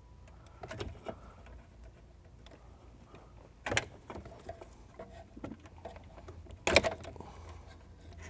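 Plastic wiring-harness plugs being unlatched and pulled from the back of a factory car radio: a few scattered sharp clicks and rattles, the loudest near the end, over a low steady hum.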